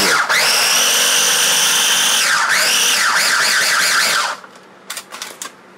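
Small KitchenAid food chopper motor whining at speed as it chops butter, flour, sugar and almonds into streusel. Its pitch drops and picks up again about halfway as it is pulsed. It stops after about four seconds, followed by a few light clicks.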